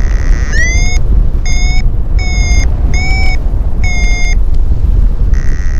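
Paraglider variometer beeping: five short pitched beeps in about four seconds, the first sliding up in pitch, its climb signal while thermalling. A steady held tone sounds just before the beeps and again near the end, all over heavy wind rushing on the microphone.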